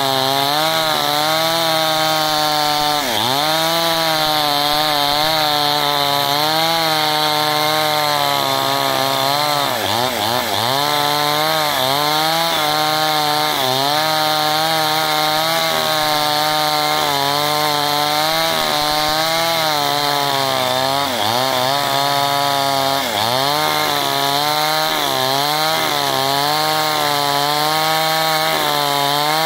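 Two-stroke chainsaw running at full throttle, ripping a log of very hard timber lengthwise along the grain. The engine's pitch holds high and dips briefly under load several times as the bar bites, then picks back up.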